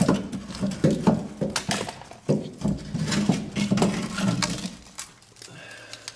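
A rusted exhaust pipe and its loose tie wire rattling and clanking as they are worked off a rubber exhaust hanger. There are many short metal knocks and clinks for about five seconds, then it goes quieter.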